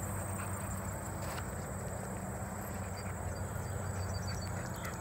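Insects trilling steadily at a high pitch in summer prairie grass, over a low steady rumble.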